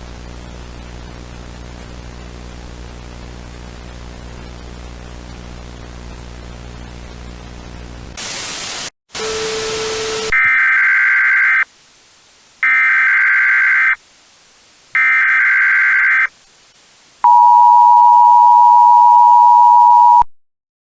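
Steady electrical hum under static. About eight seconds in, a short burst of static breaks in. Then come the three one-second bursts of an Emergency Alert System SAME header data tone, followed by the EAS attention signal: a steady two-tone beep held for about three seconds.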